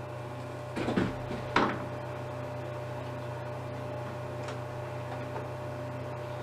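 Two brief knocks and scrapes of a PTZ camera being handled and set down, about one and a half seconds in, over a steady low electrical hum.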